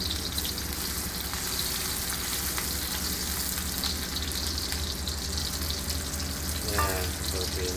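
Sliced shallots and garlic sizzling steadily in hot oil in a wok while a spatula stirs them. They are being sautéed until fragrant.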